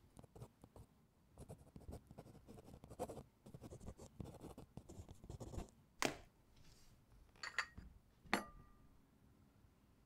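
Ballpoint pen scratching on notebook paper in quick, uneven strokes. After about six seconds the writing stops, and three sharp clicks and clinks follow, the last with a brief ring.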